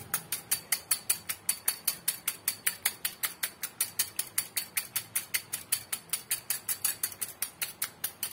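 Hand wire whisk beating an egg in a small glass bowl, its wires clicking against the glass in a fast, even rhythm of about six strokes a second.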